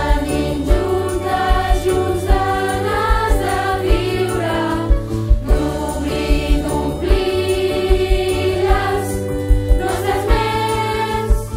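A choir sings the school anthem in Catalan ("i tenim, juntes, junts, ganes de viure, d'obrir i d'omplir les nostres ments!") over instrumental accompaniment with a steady beat.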